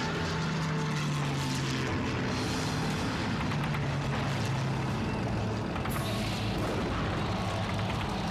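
Tank driving, its engine running with a steady low hum.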